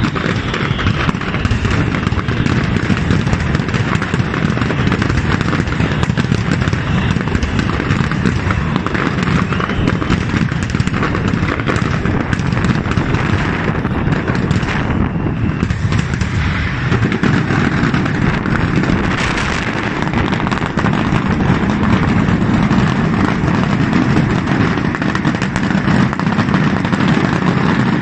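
Aerial fireworks display bursting without a break: a dense, rapid barrage of overlapping bangs and crackles at an even, loud level.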